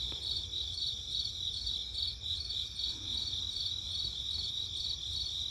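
Crickets chirping in a steady chorus, a high pulsing trill at about three beats a second.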